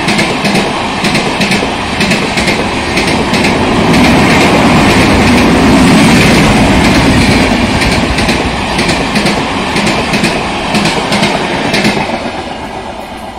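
LHB passenger coaches of an Indian Railways express passing at speed, their wheels clattering over the rail joints in a quick run of clicks. The sound swells to its loudest in the middle and fades near the end.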